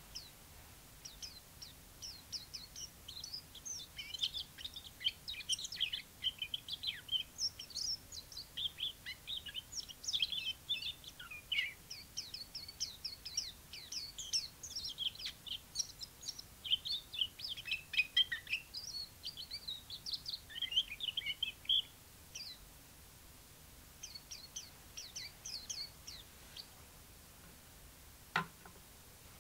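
Chinese white-eye singing a long, rapid, high-pitched twittering song, breaking off about two-thirds of the way through and coming back with a shorter phrase. A single sharp click near the end.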